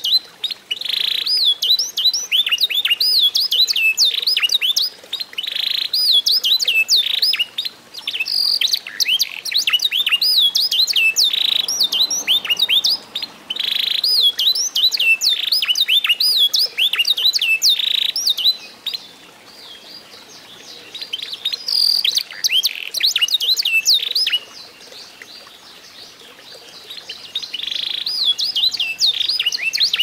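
Caged eight-month-old canary singing a long, varied song of rapid whistled notes, glides and trills, with two short pauses in the second half and a fast even trill near the end. The song is the product of mastering: tutoring the bird with recordings of other birds' songs.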